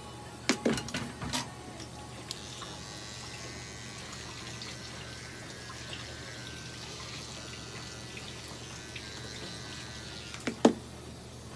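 Small battery-powered pet trimmer running with a steady high hiss as it shaves the hair between a cat's paw pads, starting about two seconds in. A few short louder sounds come just before it and one more near the end.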